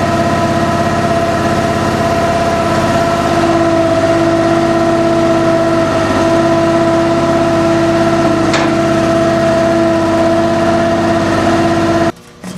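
16-hp V-twin Briggs & Stratton gas engine running steadily at constant speed, driving the tire baler's hydraulic pump, with a steady held tone over the engine noise. The sound cuts off abruptly near the end.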